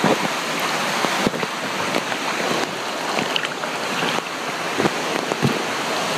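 Steady rush of running water, with a few faint knocks.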